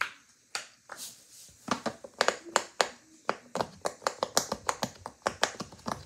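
Rainbow silicone push-pop fidget toy having its bubbles pressed one after another with a finger, making a string of sharp popping clicks, a few at first and then several a second from about two seconds in.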